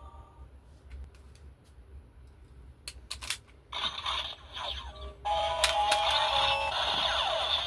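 Super Sentai hand-gesture gun toy: a few plastic clicks, then its speaker plays an electronic sound effect with a tinny jingle, starting about four seconds in and growing louder a second later.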